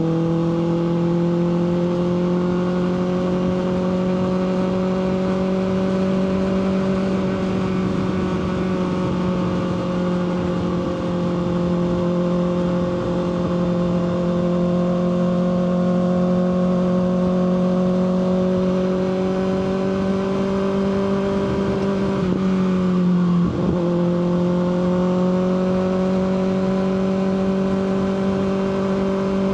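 Kawasaki ZX6R's inline-four engine running steadily at cruising revs, pitch rising slightly at first, then dipping briefly and picking back up about 23 seconds in.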